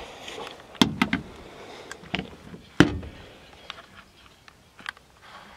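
Several short, sharp metallic clicks and clacks of a Lee-Enfield SMLE bolt-action rifle being handled after firing. The loudest clack comes about three seconds in.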